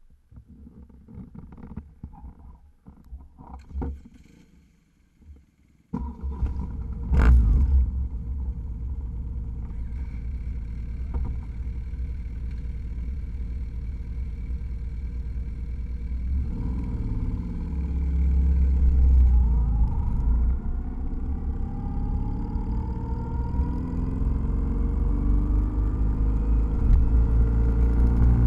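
BMW R nineT motorcycle engine starting up about six seconds in and running steadily, then pulling away about halfway through, its pitch rising repeatedly as it accelerates.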